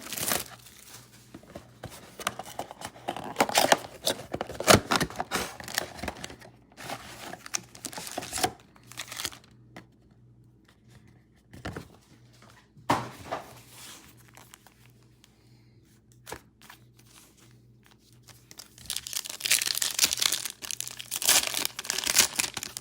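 Plastic wrapping on a trading-card mega box and its packs crinkling and tearing as the box is opened. The crinkling comes in bursts through the first several seconds and again near the end, with a few sharp knocks in between.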